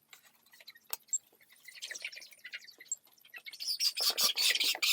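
A flock of broiler chickens peeping and cheeping, a few scattered calls at first, then many overlapping calls from about three and a half seconds in.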